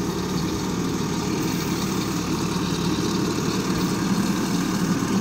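Mahindra G75 Roadmaster motor grader's diesel engine running steadily as the grader works along a slope with its blade down, a low drone that grows slightly louder in the second half.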